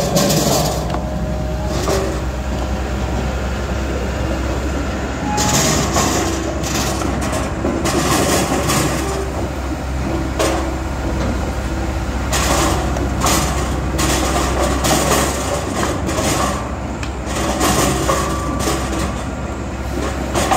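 Posch K-650 Vario firewood processor running with a steady low hum, while freshly split logs clatter down a metal chute and drop into a steel-mesh crate at irregular intervals.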